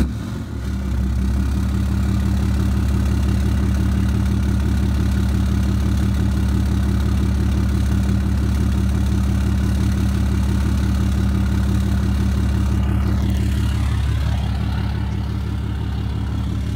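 2009 Ram 3500's Cummins turbo-diesel straight-six just started, settling within about a second into a steady diesel idle.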